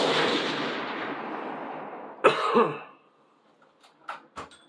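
A rifle shot's report echoing and fading away over about two seconds. About two seconds in comes a loud cough, and near the end there are a few light clicks.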